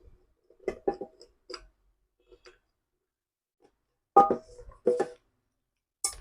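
Parts of an electric kettle being handled during reassembly: a few light knocks about a second in, then two louder clinks with a short ring a little after four and five seconds in.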